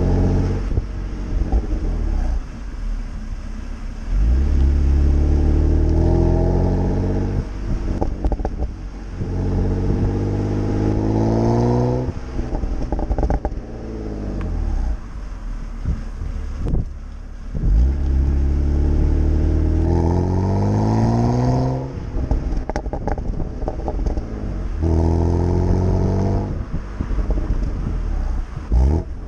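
BMW E92 325i's N52B25 2.5-litre straight-six through a BMW Performance rear silencer, accelerating hard in four pulls that each rise in pitch and then drop away. Short crackles and pops come from the exhaust as the throttle closes after the pulls.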